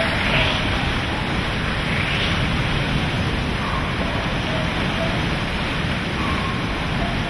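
Hurricane Katrina's wind and storm-surge water rushing in a loud, steady, unbroken noise.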